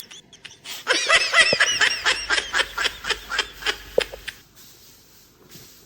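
A person laughing in a fast run of short, high-pitched bursts, about four to five a second, tailing off after about three seconds.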